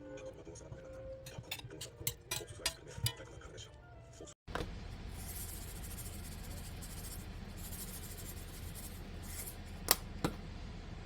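Kitchen clatter: dishes and utensils clinking and knocking in quick, irregular strikes. After a sudden cut, food sizzles steadily in a pan, with two sharp utensil clinks near the end.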